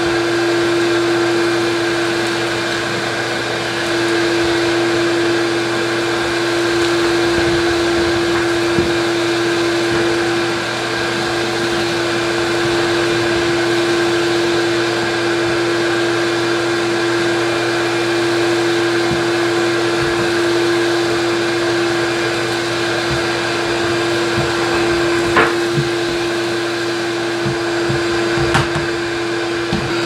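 Ridgid shop vac running steadily with a floor nozzle, sucking debris off a wood floor: a constant motor hum over the rush of air. A couple of sharp clicks come near the end.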